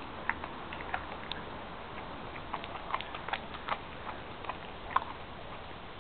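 Siberian husky chewing a raw whole chicken, her teeth crunching through bone in scattered sharp cracks and clicks, the loudest about five seconds in.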